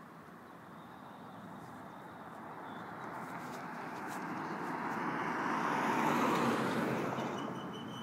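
A road vehicle passing by: its noise builds gradually over about six seconds, peaks, then fades away.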